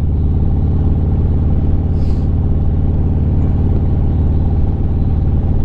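Harley-Davidson Street Glide's V-twin engine running steadily at cruising speed, heard from the bike's onboard camera.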